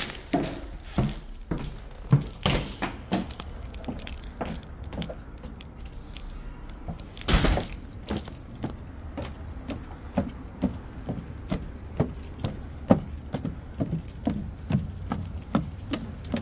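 Footsteps on a wooden deck and down wooden steps, about two a second, with one louder thump about seven seconds in.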